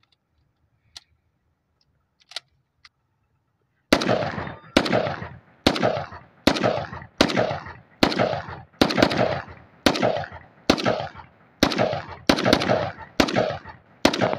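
A Pakistani-made AK-pattern rifle firing about a dozen single shots in quick succession, roughly one a second, each crack followed by a short echo. A few small clicks from handling the rifle come before the first shot.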